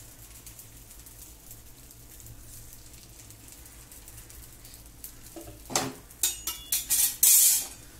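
Adai batter sizzling faintly on a hot cast-iron tawa as a steel ladle spreads it. Then, in the last few seconds, a quick run of loud metallic clinks and scrapes from steel utensils and vessels, the loudest near the end.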